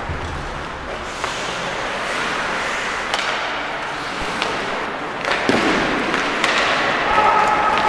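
Amateur ice hockey play in an indoor rink: sharp clacks of sticks and puck hitting now and then over a steady background of skating and hall noise, with a steady two-note tone lasting about a second near the end.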